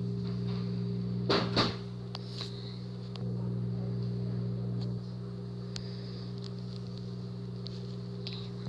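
A steady low hum, with a few faint clicks and a short louder sound about a second and a half in.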